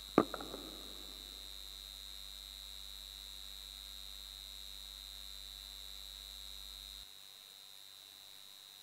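A single sharp knock right at the start, then a steady electrical hum with a high, thin whine from the church sound system. The low part of the hum cuts off suddenly about seven seconds in, while the whine carries on.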